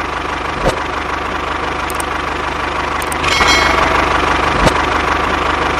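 An engine idling steadily with a fast, even low pulse. A brief brighter hiss comes in about three seconds in, and two sharp clicks stand out, one near the start and one near the end.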